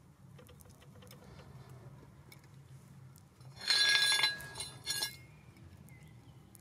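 Pieces of scrap metal clinking and jangling together with a bright ringing, loudest for about a second just past halfway, then a shorter clink a moment later.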